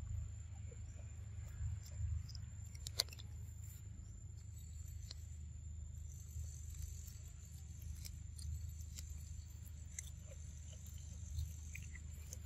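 Outdoor ambience of a steady high-pitched insect drone over a low rumble, with scattered small clicks and one sharp click about three seconds in.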